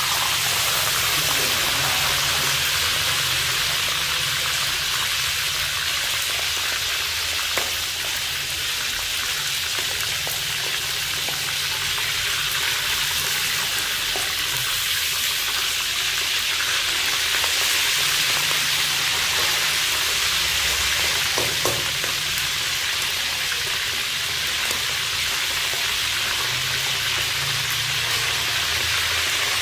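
A whole frog frying in hot oil in a wok, a steady, dense sizzle. A metal spatula now and then scrapes and knocks lightly against the wok as the frog is turned.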